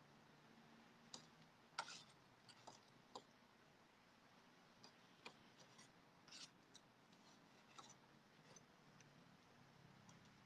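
Faint, scattered clicks and scrapes of a metal fork and spoon against a plate during eating, the loudest a little under two seconds in.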